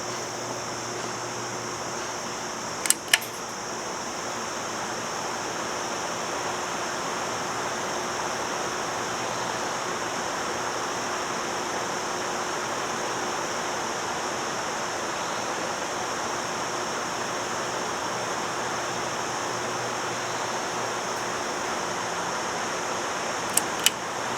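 Fan with a freshly repaired, previously shorted motor running steadily, with a smooth rush of moving air. Two quick sharp clicks come about three seconds in, and another two near the end.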